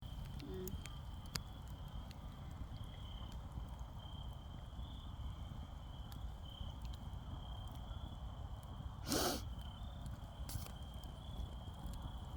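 Bonfire crackling: scattered sharp pops over a low rumble, with one louder hissing burst about nine seconds in. A faint steady high-pitched tone sounds on and off throughout.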